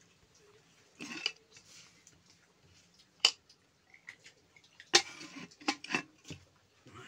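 Steel cooking pots and a pressure-cooker lid being handled: scattered metal clinks and scrapes, with a sharp clank about three seconds in and a louder cluster of clatters about five seconds in.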